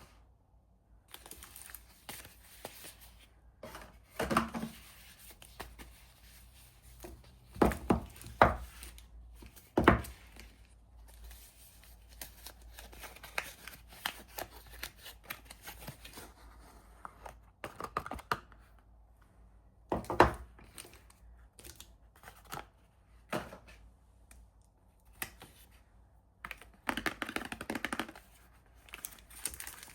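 Soap wrappers being torn open and crinkled by hand, with a few sharp knocks spread through, and a longer stretch of rustling near the end.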